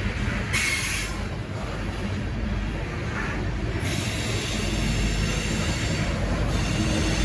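BNSF freight train rolling past, a steady rumble of wheels and cars on the rails. A brief high squeal comes about half a second in, with a shorter one a few seconds later.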